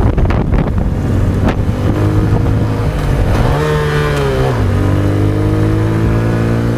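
Honda XRM 125's single-cylinder four-stroke engine under way, revving up in pitch and then dropping sharply about four and a half seconds in at a gear change before settling to a steady pitch; the rider says right after that he fumbled it.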